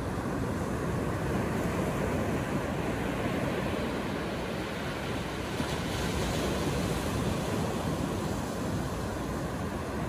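Atlantic Ocean surf breaking on the shore: a steady rush of waves, swelling slightly in loudness now and then.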